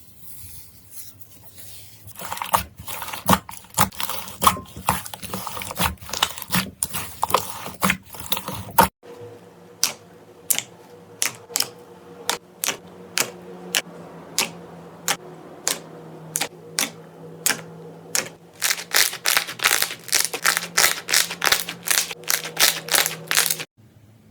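Slime being pressed and worked by hand, giving sharp, crisp clicks and crackling pops. After an abrupt change partway through, a run of separate clicks comes at a steady pace, getting faster near the end before stopping suddenly.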